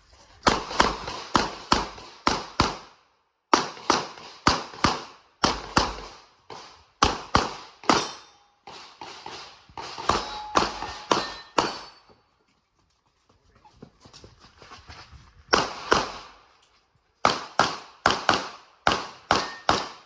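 Glock 34 9mm pistol firing fast strings of shots, many in quick pairs, broken by short pauses and one longer break of about three seconds before the shooting picks up again.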